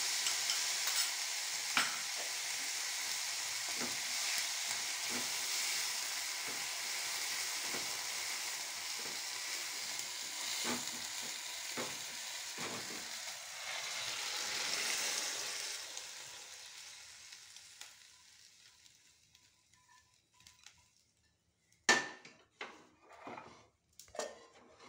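Rice with curd sizzling in a hot non-stick pan on a gas stove while it is stirred with a spatula, the scrape of the strokes coming every second or so. The sizzle fades away over a few seconds. Near the end there is a sharp clank and then several clinks of steel utensils on the counter.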